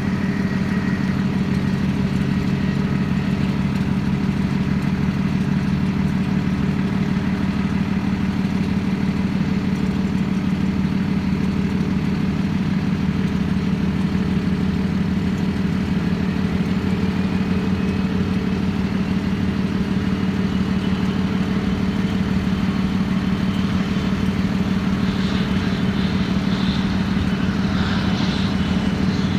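Steady low engine drone as a jet airliner taxis, with the jet's engine whine rising in the last few seconds.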